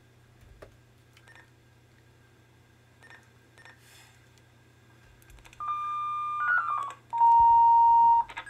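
A 5/6-tone selective-calling page, the signal that calls one radio user. After a few faint clicks it starts about two-thirds of the way in with a steady beep. A quick run of short tones stepping in pitch follows, then a longer, lower steady tone.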